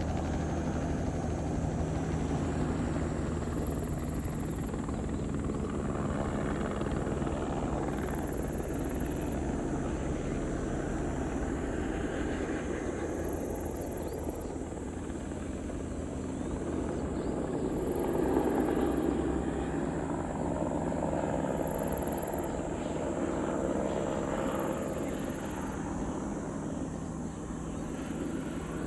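Helicopter running steadily, its engine and rotor a continuous hum and noise, growing briefly louder about two-thirds of the way through.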